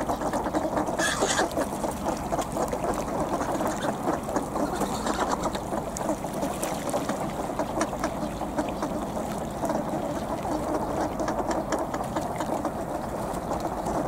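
A large flock of ducks on the water, calling in a continuous busy chatter, with one brief louder call about a second in.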